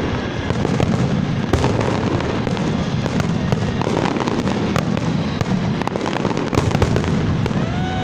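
Large aerial fireworks display: a continuous barrage of shell bursts and crackling, many sharp pops and bangs overlapping with no break.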